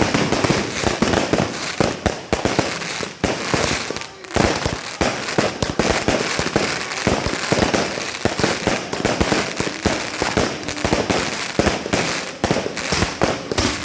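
Fireworks going off in a dense, continuous barrage: many overlapping bangs and crackling pops with no let-up.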